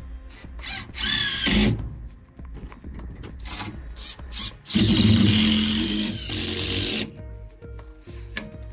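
Ryobi cordless drill driving screws into wood framing in two runs: a short whirring burst about a second in that rises in pitch, then a longer run of about two seconds starting near the middle.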